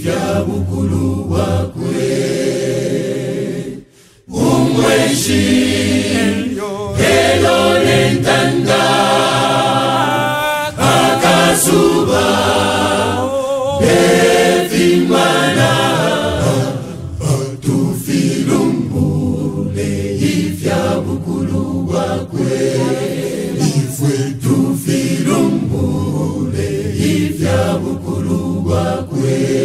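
Mixed gospel choir of men and women singing a cappella in full harmony, a Bemba hymn. The singing breaks off for a moment about four seconds in, then resumes.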